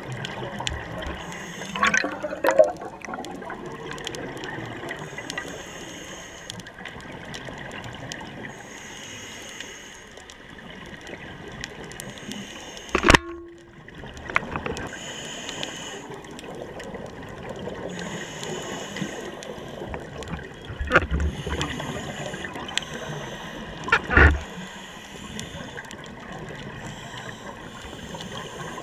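Scuba diver breathing through a regulator underwater, heard through a camera housing: a steady bubbling rush of exhaled air with a hiss that comes back every few seconds. Several sharp knocks cut in, the loudest about halfway through.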